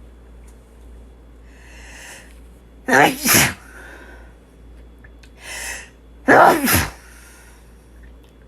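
A person sneezing twice, about three and a half seconds apart, each sneeze preceded by an audible breath in.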